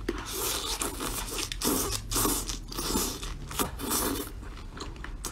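Close-up eating: sauced food being bitten off bamboo skewers and chewed, a run of short wet, noisy mouth sounds about every half second.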